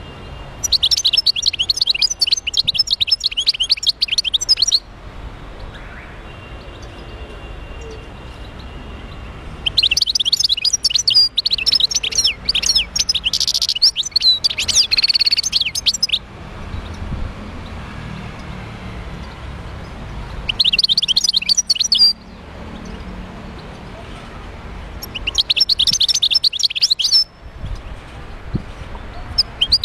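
A wild-caught European goldfinch singing in bursts of fast, high twittering song: four phrases with pauses between them, the longest about six seconds in the middle, and a fifth starting right at the end.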